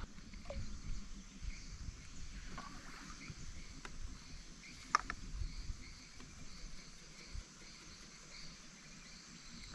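Faint steady chorus of forest insects, over low, uneven water and handling noise from the kayak, with a single sharp click about five seconds in.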